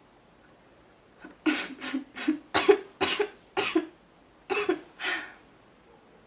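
A sick woman coughing in a rapid fit of about nine short coughs, with a brief pause before the last two.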